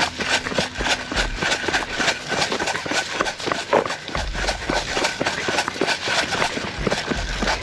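Running footsteps on dry leaf litter and sandy dirt, quick irregular steps with gear and clothing rattling, and gusts of wind rumbling on the microphone; a thin steady high tone sits underneath.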